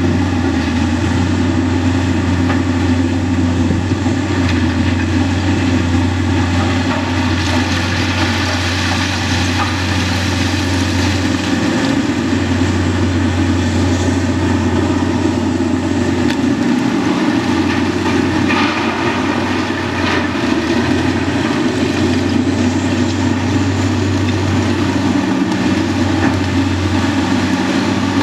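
Heavy diesel engines of a Demag H95 hydraulic shovel working at the rock face and a FAUN K85.5 dump truck standing by, running steadily and loud, with a few brief clatters of rock now and then.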